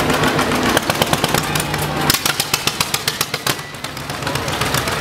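Old tractor engine running slowly with a quick, even train of popping exhaust beats. A steady low hum underneath stops about two seconds in.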